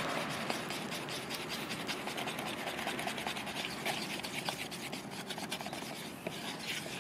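A stirring stick scraping and rubbing against the inside of a plastic bucket as it mixes green-tinted epoxy resin. It makes a steady run of fine, rapid scratching.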